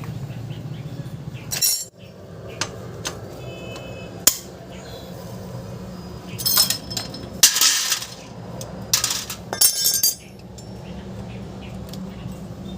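Metal tools and engine parts clinking and rattling as they are handled, in a scatter of sharp clinks with short rattling runs between about six and ten seconds in, over a steady low hum.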